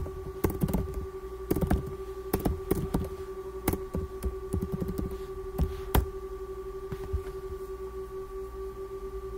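Computer keyboard typing: irregular key clicks, with two sharper strikes about 3.7 and 6 seconds in, then no more keys, under a steady hum.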